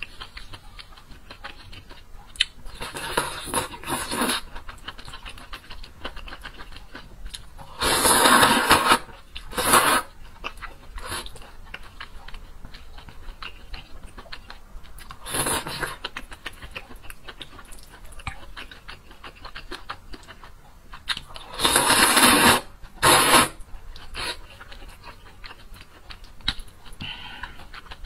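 Close-miked eating of noodle soup: soft chewing and small wet mouth sounds, broken several times by loud, breathy bursts from the mouth about a second long as she takes in noodles and hot food.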